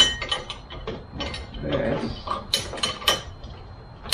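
Irregular clicks and clanks of metal parts being handled and fitted at a car's frunk hinge, the loudest a few sharp clicks close together near the end.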